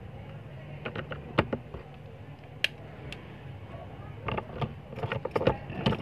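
Small sharp plastic clicks and taps of a Nokia 106's housing, display board and keypad being handled and fitted back together: a few scattered clicks at first, then a quicker run of them in the second half. A steady low hum runs underneath.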